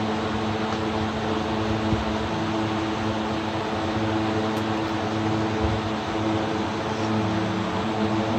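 Steady mechanical hum with a rushing noise over it, even and unchanging throughout, like a fan or motor running continuously.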